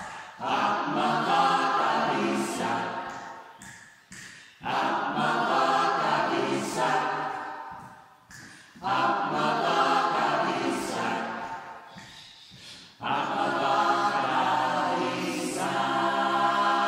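A cappella choir singing in phrases of about four seconds, with short breaks between them, ending on a held chord.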